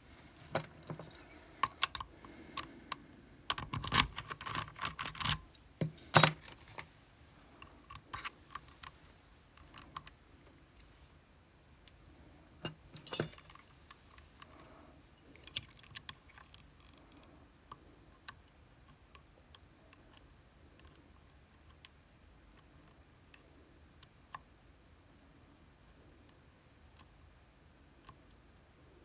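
Small metal lock picks and a Vachette V-DIS+ lock jingling and clattering together for the first several seconds, then sparse light clicks as the lock is worked.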